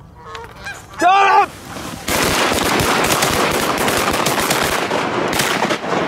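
Canada geese honking: a few faint calls, then one loud, close honk about a second in, then from about two seconds a dense, loud clamor of many geese calling at once as the flock comes low over the decoys.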